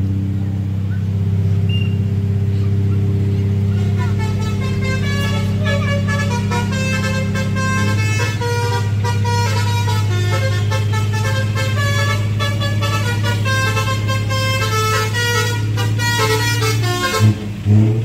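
Tour bus's Basuri 'telolet' multi-tone horn playing a fast melodic run of short notes over a steady low drone. It starts about four seconds in and stops about a second before the end, with two short loud blasts near the end.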